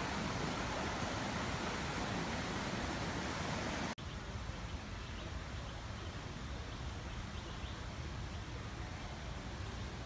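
Steady outdoor background hiss. It drops abruptly to a quieter level after a momentary dropout about four seconds in, and a few faint high chirps come through in the quieter part.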